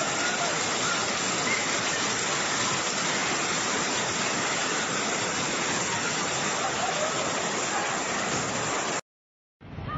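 Heavy rain pouring down in a steady, dense hiss, splashing onto flooded ground. It cuts off suddenly about nine seconds in.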